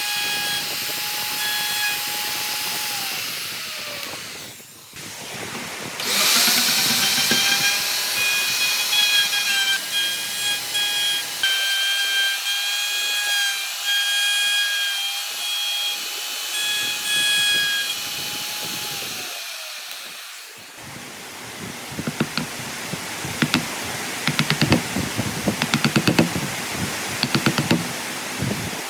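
A handheld electric power tool running with a steady whine. It winds down and stops a few seconds in, spins back up about six seconds in, runs on and winds down again near two-thirds through. Then comes a rapid, irregular scratching and clicking.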